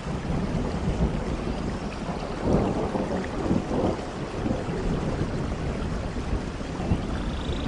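Heavy rain falling, with a low rumble underneath that swells a few seconds in. A faint high chirp comes near the end.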